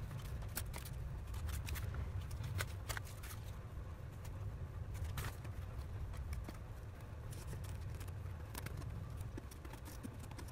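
A corrugated cardboard box shell being handled and turned in the hands, giving many small taps, scrapes and crinkles, over a steady low hum.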